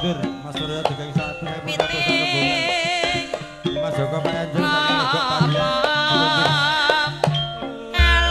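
Live Javanese gamelan playing for dancing, with steady hand-drum (kendang) strokes under held melody notes and a wavering sung or bowed line. A deep low stroke comes in near the end and keeps sounding.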